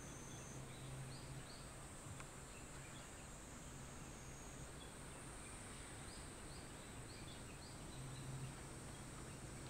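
Faint outdoor ambience: a steady high insect drone with a few short bird chirps, twice near the start and in a run of several past the middle, over a low steady hum.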